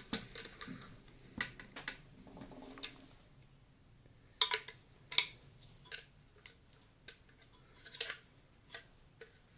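Scattered metallic clicks and clinks from tightening the nut over the washer and impeller on the shaft of an LG YDC01-20A vacuum cleaner motor, with a few louder clinks in the second half.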